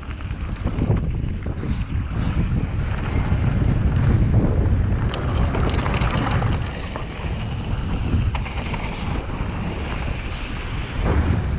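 Wind buffeting the action-camera microphone as a Cube Stereo mountain bike rolls down a dry dirt and gravel trail, with tyres crunching over loose stones and the bike rattling. It grows louder over the first few seconds as the bike picks up speed.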